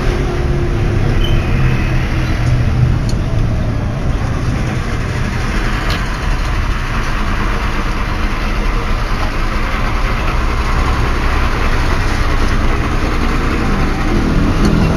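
Intercity bus's diesel engine running steadily, heard from inside the cabin with road noise.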